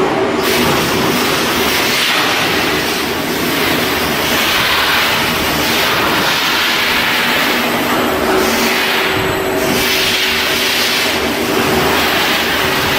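Loud, steady industrial machinery noise with a constant hum and hissing that swells and fades every second or two.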